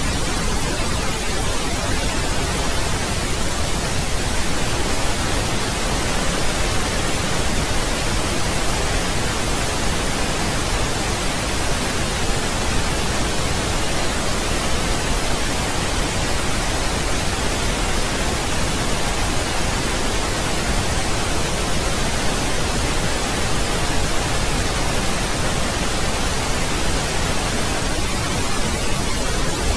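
Steady synthetic pink noise: an even, unchanging hiss across the whole range of pitch, with no changes.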